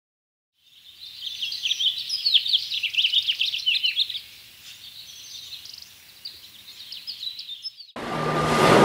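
A chorus of small birds chirping, many quick high calls at once, busiest for the first few seconds and then thinning out. Near the end it cuts abruptly to a loud rush of waves.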